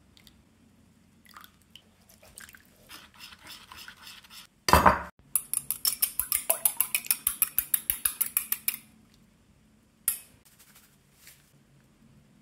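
A metal utensil clinking quickly and evenly against a ceramic bowl for about three and a half seconds, some eight clinks a second. Just before, there is a short loud clatter, and a single clink comes a little after.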